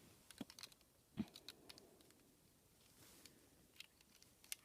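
Faint, scattered clicks and light knocks of hard plastic Rubik's Cube pieces being handled and fitted together, the loudest a small knock about a second in.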